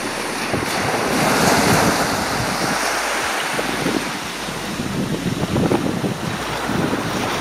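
Small waves breaking and washing up a sandy beach, with wind gusting on the microphone.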